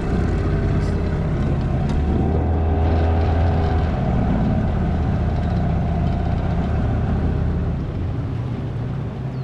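Boat outboard motor running steadily under way, its note lifting slightly about two seconds in and easing off near the end.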